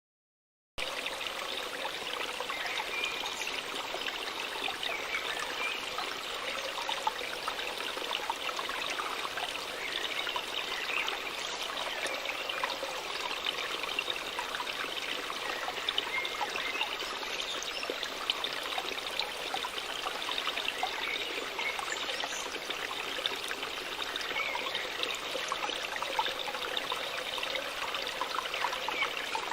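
Waterfall: water falling and splashing steadily, starting abruptly about a second in.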